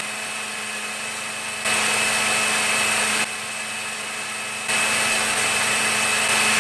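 Electric countertop blender motor running with a steady whine, dropping a little in loudness and coming back up a few times.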